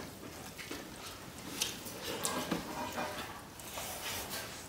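Faint eating sounds: chewing and mouth noises, with small scattered clicks and smacks, one a little sharper about a second and a half in.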